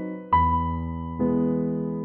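Background music: slow keyboard chords, two struck about a second apart and left to ring out.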